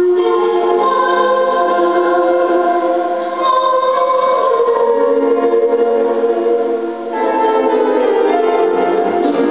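A woman singing a slow song in long, held notes with grand piano accompaniment. The phrases break briefly about a third and two-thirds of the way through.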